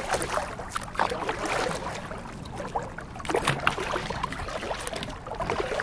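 Kayak being paddled on calm water: irregular splashes and drips of the paddle blades dipping in, with water swishing around the kayak.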